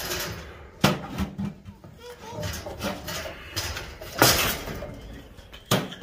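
A buck goat knocking a loose wooden 2x4 around as a toy: a few hard wooden knocks and bangs, the loudest about four seconds in.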